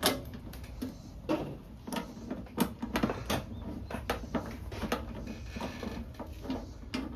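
Irregular small metallic clicks and taps of oil pan bolts, washers and hand tools being handled as the bolts are started by hand.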